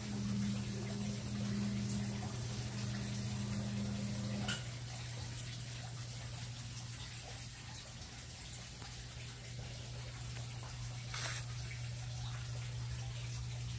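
Model train running on a train table: a steady low hum, with a higher tone over it for the first four and a half seconds that stops with a click, and another short click about eleven seconds in.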